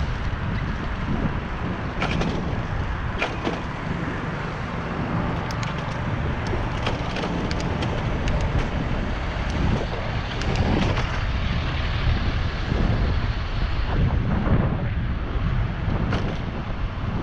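Wind rushing over an action camera's microphone while riding a bicycle, a steady low rumble with scattered light clicks and rattles.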